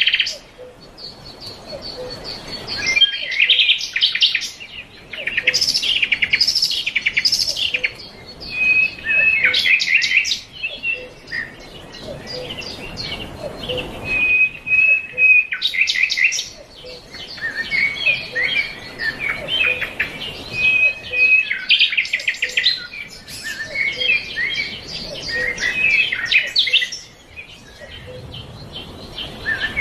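Songbirds chirping and singing: clusters of quick, high chirps and trills with a few held whistled notes, coming in bursts every few seconds with short lulls between.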